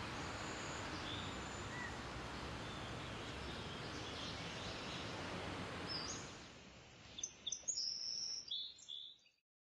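Tropical forest ambience: a steady hiss with faint bird calls, then from about seven seconds a series of short, clear, high bird whistles that stops abruptly shortly before the end.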